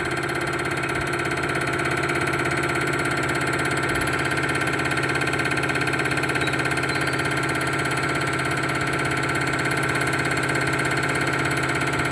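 Common-rail diesel injector test bench running steadily, its motor and high-pressure pump humming at a constant pitch with a fast, even pulsing as a Delphi injector is fired for its spray and back-leak test.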